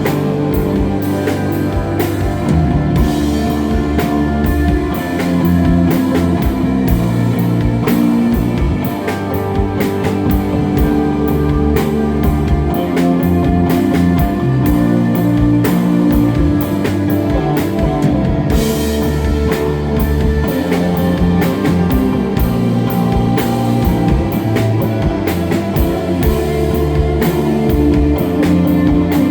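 Instrumental desert rock band playing live: electric guitar, bass guitar and drum kit, loud and steady.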